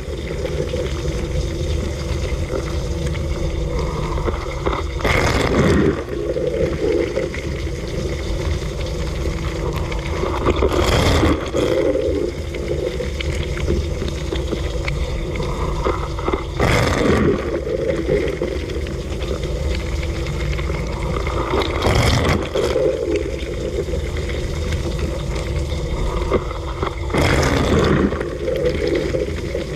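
Dishwasher running mid-wash, heard from inside the tub: the circulation pump hums steadily under spraying and splashing water. About every five and a half seconds a louder rush of water sweeps through as a spray jet passes.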